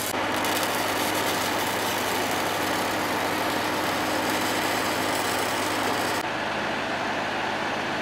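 Arc welding on a steel gas pipeline joint, a constant crackling hiss, with an engine running steadily underneath. The hiss drops away abruptly about six seconds in, leaving the engine.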